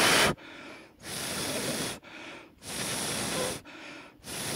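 A person blowing on freshly applied hot-melt glue to cool it so it sets: long puffs of breath about every one and a half seconds, with quieter in-breaths between.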